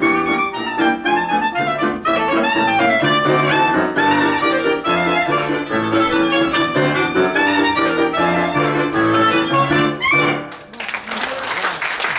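Klezmer polka played live on violin and clarinet over a keyboard's rhythmic bass accompaniment, ending about ten and a half seconds in. Applause follows.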